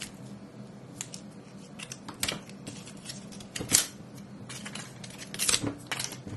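Hands handling and unwrapping a coiled white charging cable from its wrapper: a few scattered crinkles and clicks, the loudest a little past the middle.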